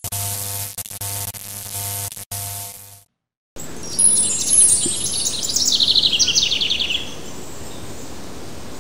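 A logo sting of steady droning tones that pulse on and off for about three seconds, a brief silence, then small birds chirping in quick high trills over a steady hiss of outdoor background noise.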